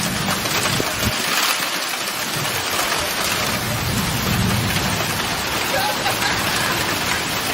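Steady heavy rain falling, with a low rumble that swells near the start and again about four seconds in.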